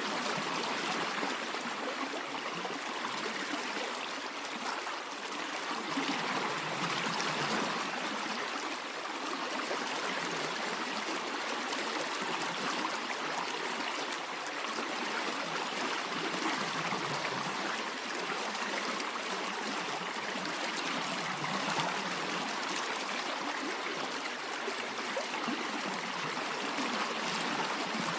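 Small stream running, a steady rush of water with trickling, swelling slightly now and then.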